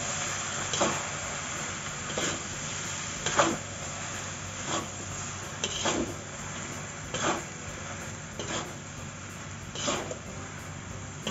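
Metal spatula scraping and tossing rice vermicelli around a metal wok, one stroke about every second and a half, over a steady hiss.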